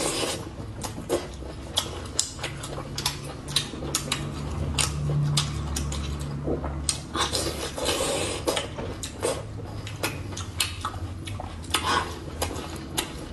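Close-miked eating of braised pork intestine: chewing and mouth clicks come irregularly, several a second.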